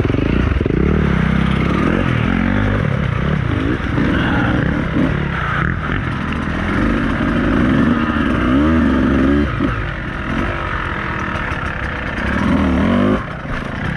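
Dirt bike engine running and revving up and down in repeated throttle blips, with a few quick rises in pitch in the second half.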